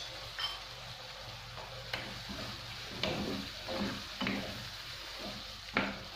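Minced meat sauce with tomato paste and spices sizzling in a frying pan while it is stirred. The utensil scrapes and knocks against the pan about once a second.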